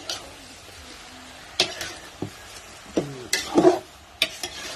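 Shrimp sizzling in butter in a large metal wok, with a metal spatula stirring and scraping against the pan in short strokes. The loudest scrapes come about three and a half seconds in.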